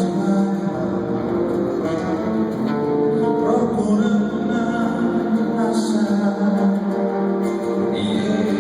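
Music: an instrumental passage with guitar and sustained notes.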